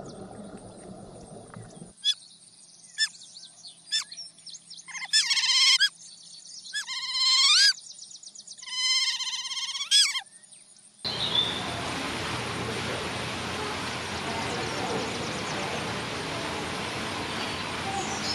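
Animal calls: a few short high chirps, then three loud runs of quick, whistling calls that sweep up and down in pitch. From about eleven seconds in they give way to a steady rushing noise.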